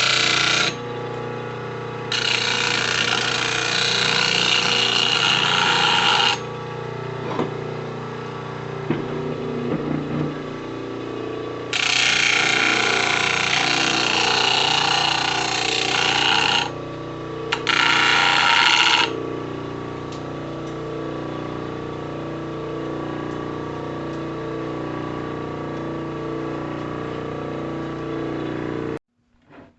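Bench drill press driven by a treadmill motor, running with a steady hum, broken by three spells of louder harsh noise, each a few seconds long, as the bit is worked. The sound cuts off suddenly near the end.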